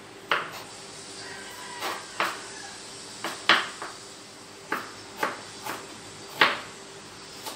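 Kitchen knife chopping on a wooden cutting board: about a dozen sharp, irregularly spaced knocks of the blade striking the board.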